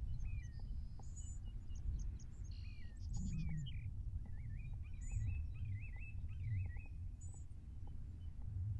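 Small birds calling and singing: short high chips every couple of seconds, a few down-slurred whistles, and a warbling run of notes from about four seconds in. Under them runs a steady low rumble, the loudest part of the sound.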